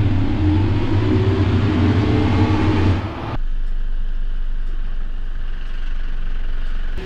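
Mercedes-Benz Unimog U 5023's four-cylinder diesel pulling under load with a rising whine as the truck wades through water, the wash of water against the wheels loud over it. About three seconds in it cuts abruptly to a steadier, quieter engine run.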